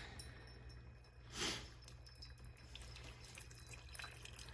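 Chefman single-serve coffee maker brewing: coffee trickling and dripping into the cup, with a brief hiss about a second and a half in. The dripping grows busier toward the end.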